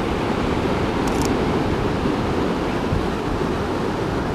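Steady rush of ocean surf on the beach, with wind noise on the microphone.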